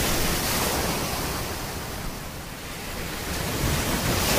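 Wind buffeting a phone microphone: a steady rushing noise with a gusty low rumble that eases a little midway.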